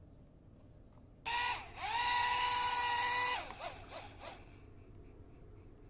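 Small drone motor whining at a high pitch. It starts suddenly about a second in, dips briefly, then runs steady for about a second and a half before cutting out. Three short blips follow.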